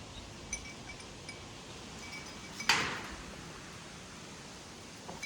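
Faint wind chimes tinkling now and then over a low background hiss, with one short burst of noise a little past the middle.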